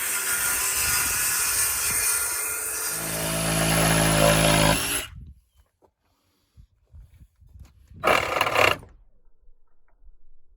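Electric power tool running steadily with a loud hum. It cuts off abruptly about five seconds in and runs again in one short burst about three seconds later.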